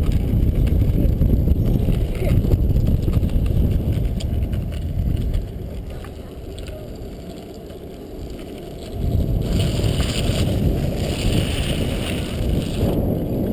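Rumble of a kick scooter rolling over asphalt, its wheels and frame shaking, with wind buffeting the microphone. It eases off for a few seconds around the middle, then picks up again.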